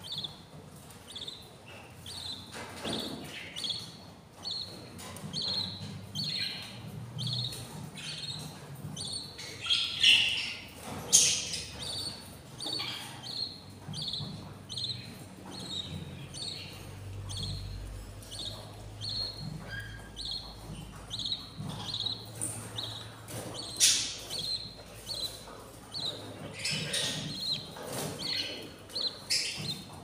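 Budgies chirping: a steady run of short, high chirps about twice a second, with a few louder, harsher calls breaking in.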